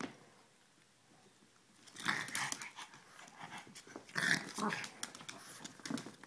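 Boston Terriers play-fighting: irregular bursts of growling and scuffling start about two seconds in, loudest about four seconds in.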